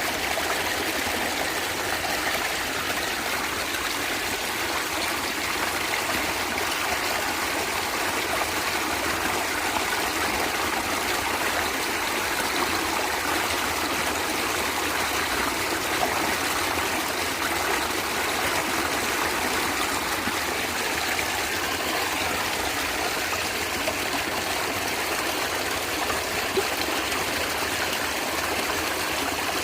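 Natural stream water flowing and gurgling steadily, with a few small splashes.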